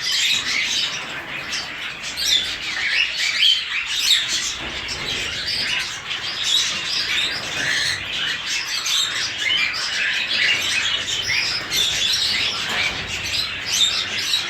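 A flock of cockatiels chirping without a break, many short calls overlapping.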